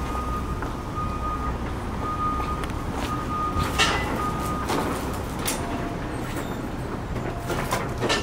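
Outdoor street background with a steady low rumble of traffic, broken by a few sharp clicks and knocks, the loudest about four seconds in.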